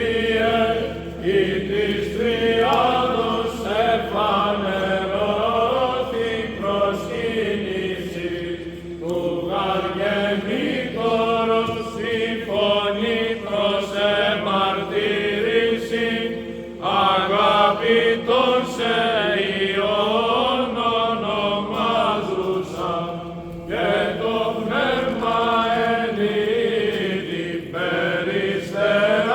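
Greek Orthodox Byzantine chant in Greek, a Theophany hymn for the blessing of the waters: melodic chanting that moves and ornaments continuously over a steady held drone note.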